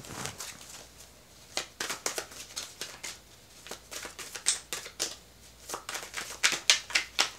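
Tarot deck shuffled by hand: a run of crisp, irregular card clicks and slaps that come thicker in the second half.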